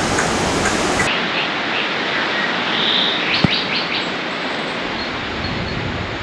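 Steady rushing noise with a bird chirping a short run of quick high calls about three seconds in, and one sharp click among them.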